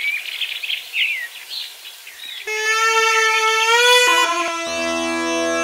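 Birds chirping. About halfway through, bagpipe music enters: a held reedy note that slides upward, then a steady, full drone under the melody from near the end.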